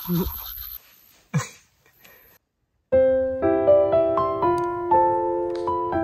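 Toothbrush scrubbing against teeth for under a second, then a brief swish and a short pause. About three seconds in, gentle piano music begins and plays on.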